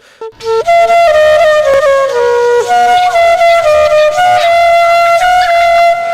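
Background music: a flute-like wind instrument playing a melody of held notes that step up and down.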